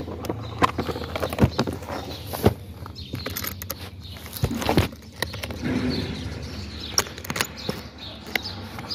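Yellow hard plastic fusion-splicer case being shut and its metal draw latches fastened by hand: a run of irregular clicks, knocks and rattles of plastic and metal.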